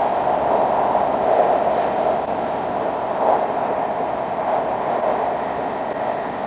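Steady running noise of an E5 series Shinkansen, heard from inside the passenger car as it travels through a tunnel.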